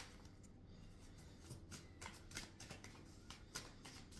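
Tarot cards being shuffled by hand: a run of faint soft clicks and flicks, a few each second, growing busier after the first second or so.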